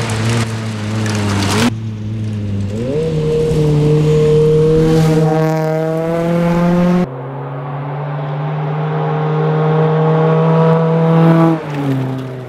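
Ford Focus rally car's engine under hard throttle at speed. Its pitch climbs steadily for a few seconds mid-way, holds high, then falls away near the end as the throttle lifts. The sound changes abruptly twice, about two and seven seconds in.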